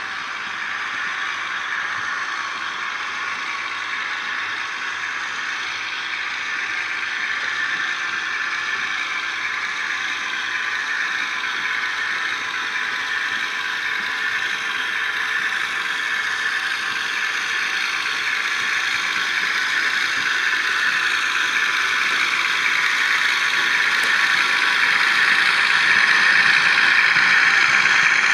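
Dapol model Class 22 diesel locomotive with a train of milk tank wagons running on model track: a steady whirring and clattering of its motor, gears and wheels on the rails, mixed with the diesel engine sound from its DCC sound decoder. It grows slowly louder as it draws near, loudest near the end.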